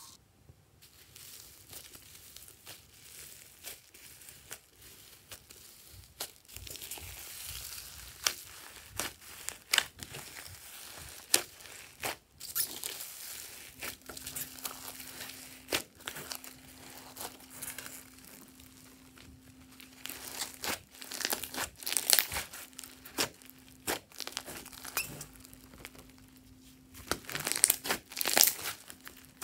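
Slime full of foam beads being mixed and squeezed by hand, giving a run of sharp clicks and crackles from the beads and sticky slime. The crackling grows louder about two-thirds of the way in and again near the end.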